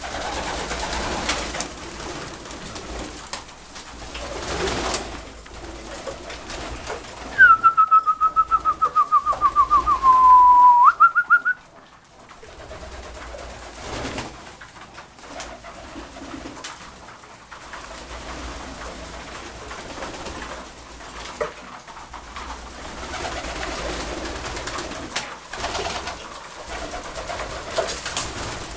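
A loft full of Saxon fancy pigeons: wings flapping, feet shuffling and soft cooing, with scattered clicks and pecking. About a third of the way in, a loud, rapid high-pitched trill sounds for about four seconds, dropping a little in pitch before it ends.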